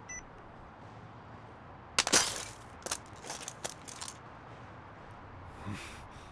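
A short electronic beep, then from about two seconds in a quick irregular run of sharp cracking slaps, six or so, the first the loudest.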